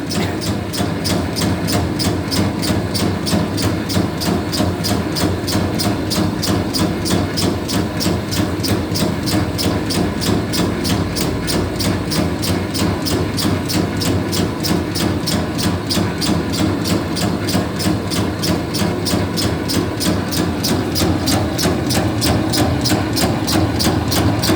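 Electric meatball-forming machine running: a steady motor hum with a rhythmic clack about three times a second.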